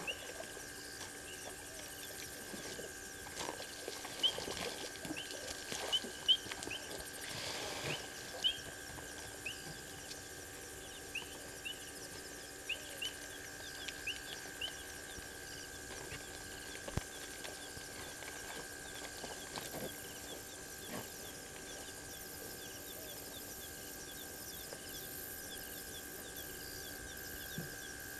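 Night insect chorus: a steady high drone, with short high chirps repeated irregularly through the first half and fading out after about fifteen seconds.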